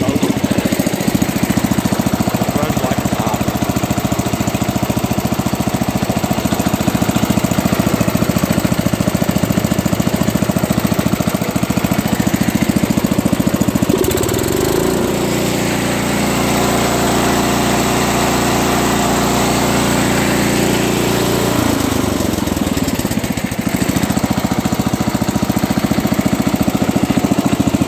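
1964 John Deere 110 garden tractor's 8 hp single-cylinder Kohler engine running steadily. About halfway through its note shifts, holds a different steady pitch for about seven seconds, then goes back.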